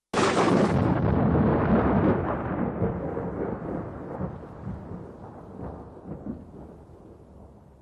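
A thunderclap: a sudden sharp crack at the start, then a long rumble that slowly dies away.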